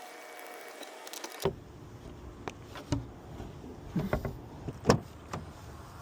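Scattered sharp clicks and knocks on a locked car's door as it is worked on to open it, with a quick run of small clicks about a second in and the loudest knock near the end.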